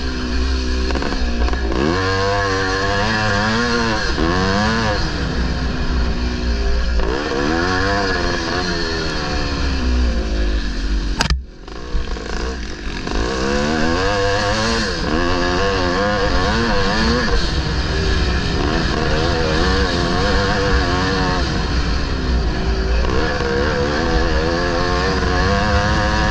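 A 1974 Maico 440's two-stroke single-cylinder engine under racing load, its pitch climbing and falling again and again as the throttle is opened and closed through the gears. About eleven seconds in, a sharp click comes and the engine sound drops away for about a second before picking up again.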